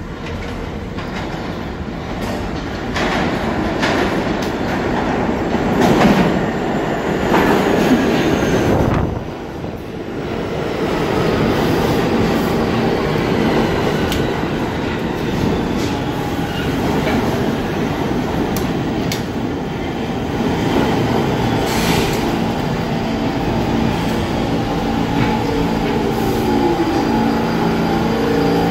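R46 New York City subway train pulling into the station and slowing to a stop: a steady rumble of wheels on rail with a few sharp clanks, and whines that fall in pitch as it slows. Low steady tones settle in near the end as it comes to rest.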